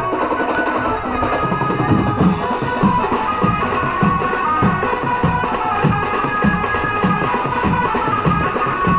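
Dhol drums of a festival drum troupe beating a steady, driving rhythm of about two heavy strokes a second, with sustained higher ringing tones over them.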